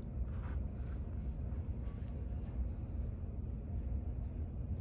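Steady low background rumble, with no distinct event standing out.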